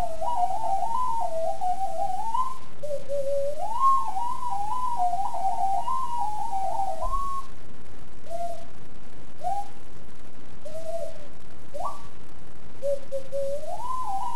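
Extended-range sweet potato ocarina played solo: a melody of pure, whistle-like notes with quick turns and trills. It comes in two long phrases, then a few short separate notes, and a new rising phrase starts near the end.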